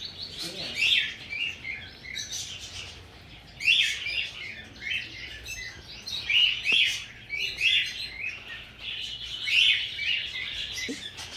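Small pet parrots chirping over and over, short high calls following one another with few breaks.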